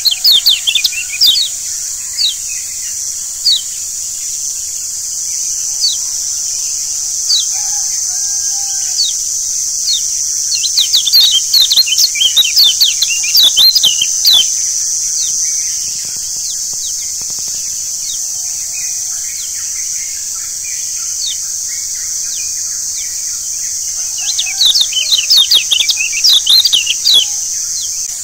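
Lombok yellow white-eye (kecial kuning) chirping in rapid flurries of short, sharp high notes, three times: near the start, around the middle, and near the end. Behind it runs a steady high insect drone.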